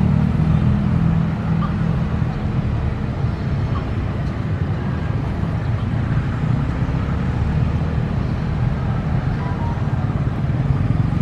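CC 203 diesel-electric locomotive's engine running with a steady low drone as it creeps forward during shunting, easing off somewhat through the middle and swelling again near the end.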